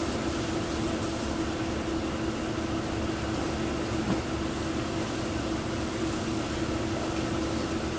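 Jet fabric-dyeing machinery running with a steady mechanical hum, a constant low tone over a wide hiss. A small click about four seconds in.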